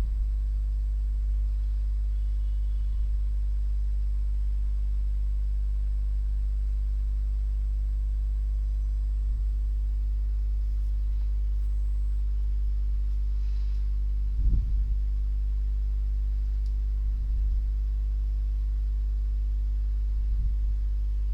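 Steady low electrical hum, mains hum at about 50 Hz with its overtones picked up in the recording chain, with a brief low thump about two-thirds of the way through.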